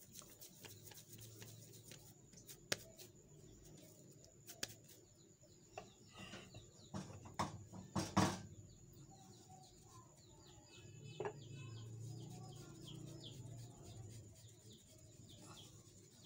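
Faint kitchen handling sounds: a ball of soft dough being shaped by hand and a wooden rolling pin knocking against a floured wooden pastry board, with a few light knocks about six to eight seconds in.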